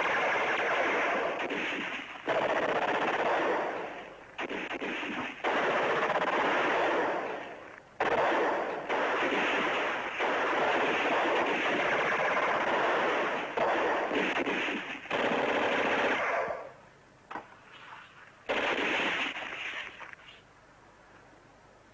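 Automatic gunfire in long, sustained bursts with short breaks between them; after about sixteen seconds it thins out, with one more burst near the end before it dies down.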